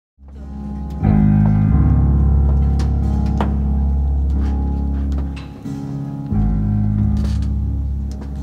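Live gospel band's instrumental introduction, starting abruptly out of silence: slow, sustained chords over deep held bass notes that come in about a second in, with a chord change a little past the middle.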